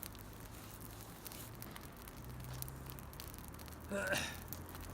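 Small twig campfire crackling with scattered sharp pops, over a low steady hum. A brief voice sounds about four seconds in.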